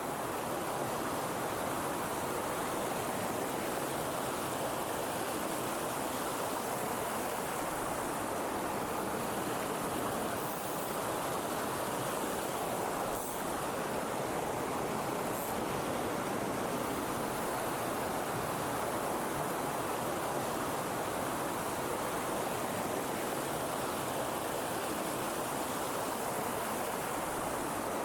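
Steady rushing of a mountain stream, an even wash of water noise with no change in level.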